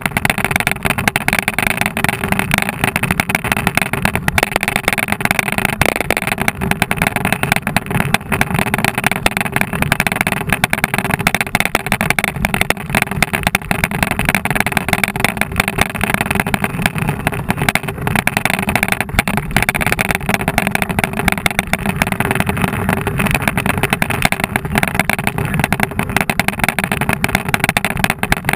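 Steady rushing wind noise buffeting the microphone of a handlebar-mounted action camera as a mountain bike rolls along at speed.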